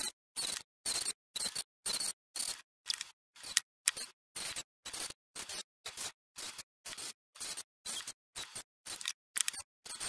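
Dremel rotary tool engraving wood, heard as a rapid, even series of short hissy snippets, about two and a half a second, with dead silence between them, as in chopped sped-up footage.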